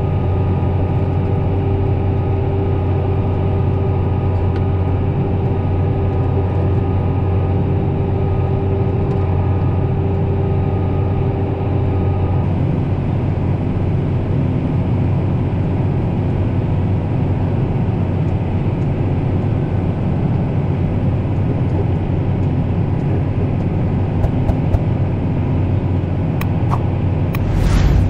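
Tractor engine running steadily under load while pulling a tillage implement, heard from inside the cab as a loud, constant drone. A higher steady whine over it drops out about halfway through, and there is a brief louder rush near the end.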